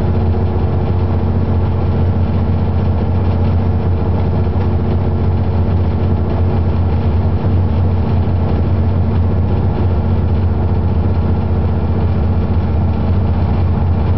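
Train running along the track, heard from inside the cab: a steady, loud low hum with an even rumble.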